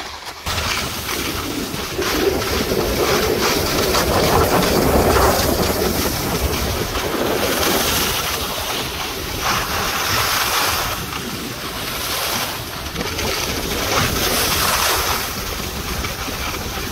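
Wind rushing over the microphone: a steady, loud rushing noise with a low buffeting rumble, swelling and easing every few seconds.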